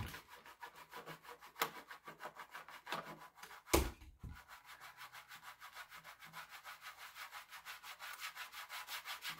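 Plastic Lego baseplate shaken rapidly back and forth on a table top, a fast even scraping rattle of plastic on the surface, with a few louder clacks of bricks knocking, the loudest a little before four seconds in.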